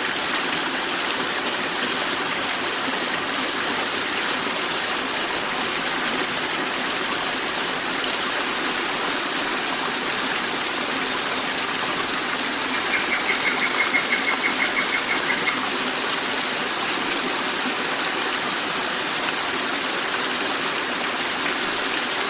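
River water flowing and rushing steadily. About two-thirds of the way through, a rapid trill of high pulses, about six a second, sounds for nearly three seconds.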